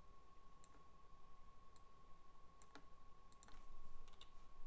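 Faint computer mouse clicks, about half a dozen spaced irregularly, over a steady thin whine.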